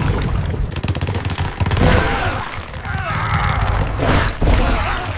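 A deep, steady rumble with a rapid run of crackling pops about a second in, then further rumbling swells.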